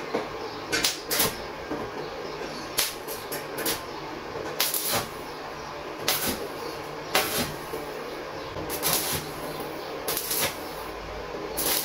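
Stick welder laying a run of short tack welds on thin sheet steel: about a dozen brief bursts of arc, each a fraction of a second long and unevenly spaced, over a steady low hum.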